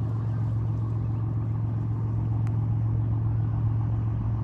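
Charter boat's engine running steadily under way, a low, even drone.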